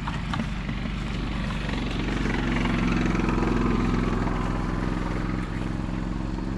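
A motor vehicle's engine running steadily as it drives past close by. It grows louder toward the middle and eases off a little near the end.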